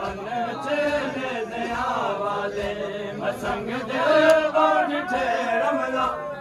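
A large crowd of male mourners chanting together, many voices overlapping and rising and falling in pitch.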